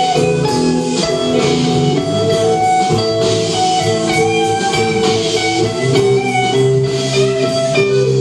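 Live rock-blues band playing a blues-style tune, with electric guitar over a drum kit and a steady beat.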